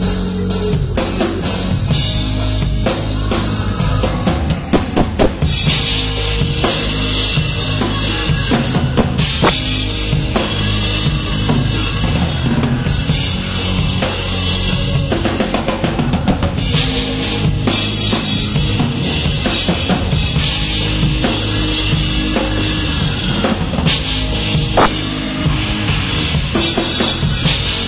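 Live rock band playing loudly, the drum kit to the fore with bass drum, snare and repeated cymbal crashes over keyboards and guitar.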